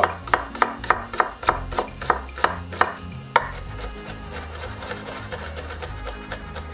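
Chef's knife chopping an onion on a wooden cutting board: sharp knocks about three a second, turning to fainter, quicker taps about halfway through.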